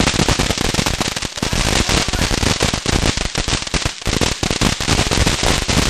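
Consumer fireworks going off in a rapid, unbroken run of sharp cracks and pops, many per second.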